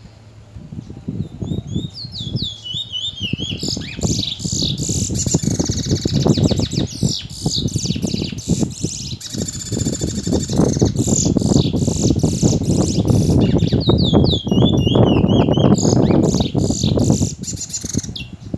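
Caged male bullfinch (a Caribbean seed finch kept for song) singing a long, fast warbling song of rapid twittering and gliding notes, the phrases keepers call 'tee chor wheet'. A heavy low rumble runs underneath.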